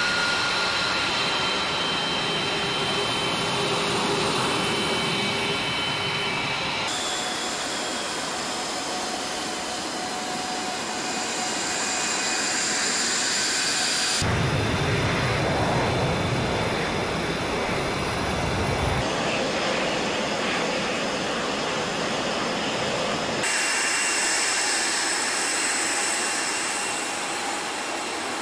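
F-22 Raptor's F119 turbofan jet engines running with a steady roar and high whining tones. The pitch and balance of the whine change abruptly four times.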